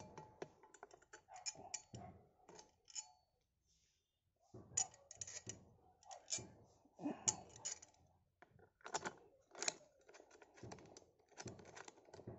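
Irregular clicks, taps and light clatter of small metal parts (nut, washers and bracket pieces) being handled and fitted by hand onto a chainsaw bar attachment on an angle grinder, with a brief silent gap about three seconds in.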